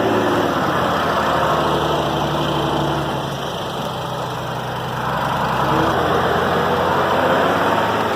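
Heavy diesel truck engine running under load, its revs easing off around the middle and building again near the end.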